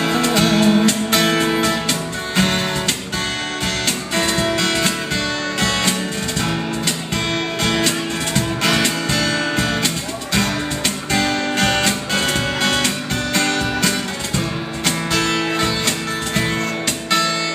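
Instrumental break in a live acoustic band performance: strummed acoustic guitar with a cajón keeping a steady beat, no singing.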